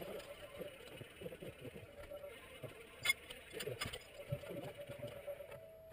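Faint workshop sounds from engine installation work: scattered sharp clicks and knocks, the loudest about three seconds in, over faint, indistinct chatter.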